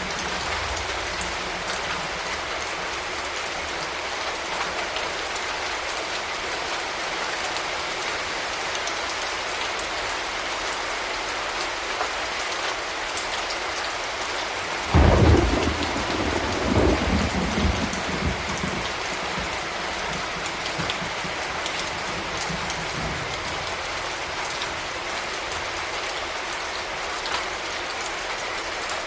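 Steady heavy rain hissing without a break. About halfway through a loud thunderclap breaks in, then rumbles away over three or four seconds.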